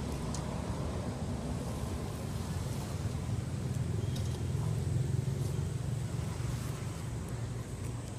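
A steady low rumble that swells about halfway through and eases near the end, with a few faint light ticks above it.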